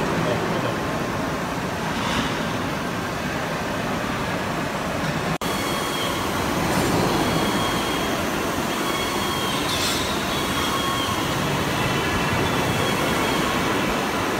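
Steady running noise of a 110-ton CNC hydraulic press brake with its servos switched on, a continuous hum and hiss with a faint high whine through the middle.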